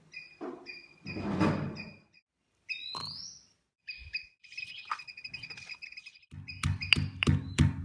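Crickets chirping in a steady rhythm, about three chirps a second. A louder whooshing noise rises and fades about a second in. Near the end, music with a steady beat comes in.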